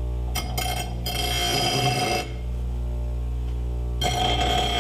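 Bench grinder running with a steady motor hum while a steel bar is pressed against its wheel twice, a harsh, high-pitched grinding for about two seconds near the start and again near the end, with a quieter stretch between.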